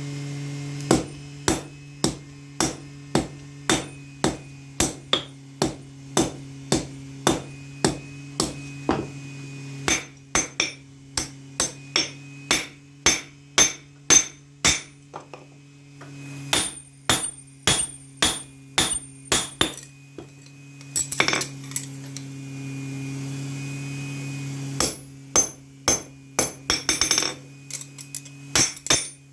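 Hand hammer striking steel on an anvil in a steady rhythm of about two blows a second, each blow ringing, as a knife blade is forged. The strikes pause briefly about halfway and come in a quicker flurry near the end, over a steady low hum.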